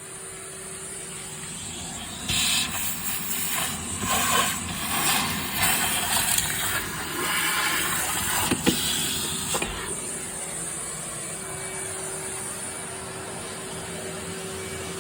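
Vacuum cleaner running with a steady motor whine. From about two seconds in until about ten seconds, it turns louder and rougher in uneven surges as it is worked over the floor, then settles back to the steady whine.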